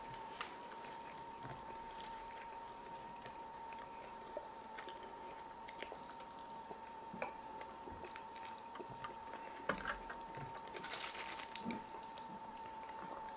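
Close-miked eating sounds: quiet chewing and biting of meat, with scattered small clicks and taps, over a faint steady tone. Near the end comes a short, crisp rustling or crunching burst.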